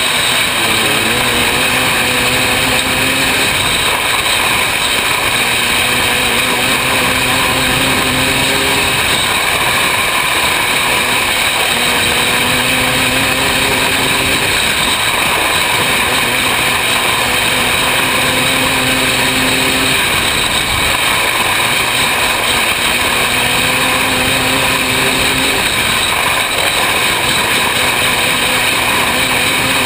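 Open 500cc micro sprint car's engine running hard at racing speed, heard from an onboard camera. Its note comes and goes and shifts in pitch every few seconds as the car goes through the straights and turns of a dirt oval, under a loud, steady rush of noise.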